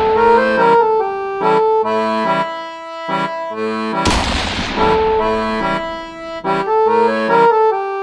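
Background music: a melody of quick, changing notes over a repeating bass figure, with a crash-like swell about four seconds in.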